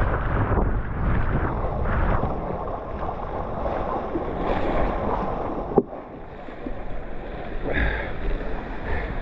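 Wind buffeting the microphone over the rush of water while out on a foiling paddleboard. A single sharp click comes about six seconds in, and the low wind rumble eases after it.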